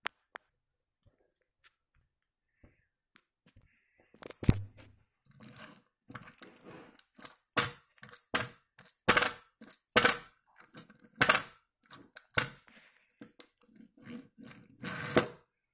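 Die-cast toy Polaris RZR pushed back and forth by hand on a wooden surface: its small wheels roll and scrape in short pushes, with irregular clicks and knocks. The sounds start about four seconds in.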